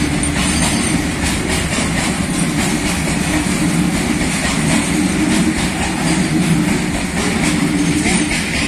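Loaded hopper wagons of a goods train rolling past, loud and steady, the wheels rumbling and clattering on the rails.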